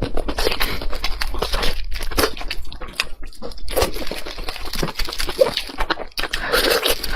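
Close-miked eating: a person chewing and biting food, a dense, irregular run of short mouth clicks and smacks.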